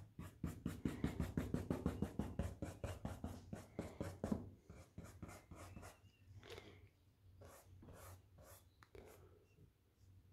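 Paintbrush scrubbing oil paint onto a canvas in quick back-and-forth strokes, about five or six a second for the first four and a half seconds, then slower, scattered strokes.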